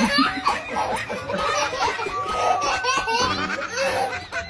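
A baby laughing in a string of short bursts.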